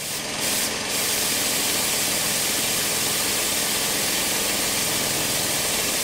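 Propellant sprayed from a pressurised can into the intake of a 1.2-litre three-cylinder engine running at idle: two short bursts, then a continuous hiss over the engine. The added fuel forces the mixture rich to test whether the downstream O2 sensor responds.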